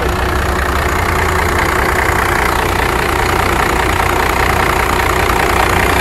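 1995 Dodge Ram 3500's 5.9-litre Cummins inline-six diesel idling steadily, heard up close in the engine bay.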